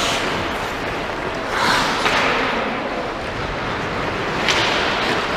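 Hockey play on a rink: a steady scraping hiss of skates on the playing surface that swells twice, with a few faint clicks.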